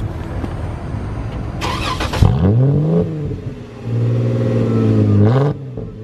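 Jeep engine heard at the tailpipe, its muffler cut out and the exhaust outlet moved, with an added tip. It idles, is blipped up and back down about two seconds in, then is held at higher revs for about a second and a half before a last short rise and drop. The note is rowdy because the muffler has been removed.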